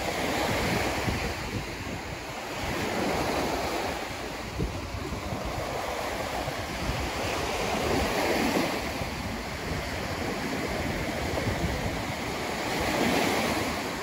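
Sea waves breaking and washing up a sandy beach, the rush rising and falling every few seconds, with wind buffeting the microphone.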